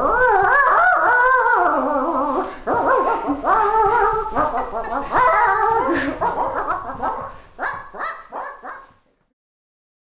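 Dog-like barks, whines and howls: a run of pitched, wavering calls, some drawn out and some short, which stop suddenly about nine seconds in.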